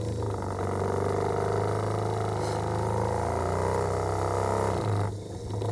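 Bench drill motor running steadily while the spinning Delphi common-rail injector control valve is lapped against its seat, metal rubbing on metal through the paste. The rubbing whirr stops about five seconds in while the motor keeps running.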